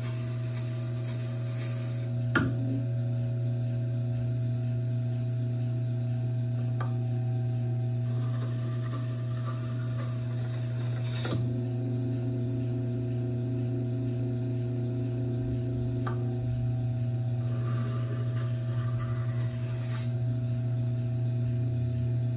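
Tormek T4 sharpener's motor running with a steady hum while the knife edge rubs on the turning grinding stone in three light scraping passes, near the start, about a third of the way in and toward the end. These are the passes that take the last of the burr off the tip. A few short clicks come as the jig is set down and lifted.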